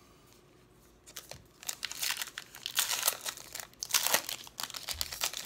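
Wrapper of a trading card pack being torn open and crinkled by hand, starting about a second in as a run of irregular crackles and rips.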